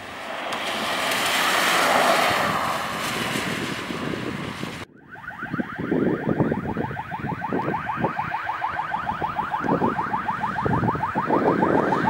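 A vehicle drives close past with a rush of engine and tyre noise that swells and fades. After a sudden cut, a fast warbling siren, about eight pulses a second, grows louder as a car approaches, with engine sound underneath.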